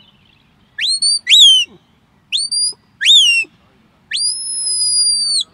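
A sheepdog handler's whistled commands to a working dog. There are two short phrases, each a rising note followed by a quick rise-and-fall, and then one long held high note that dips slightly as it ends.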